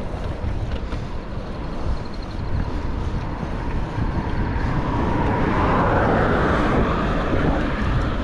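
Wind buffeting the microphone while cycling along a road, with a car going past on the road: its tyre noise swells about five seconds in and fades near the end.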